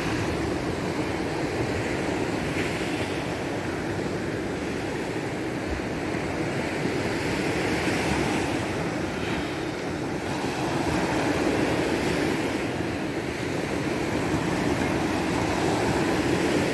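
Steady rushing of sea surf and wind, swelling gently now and then.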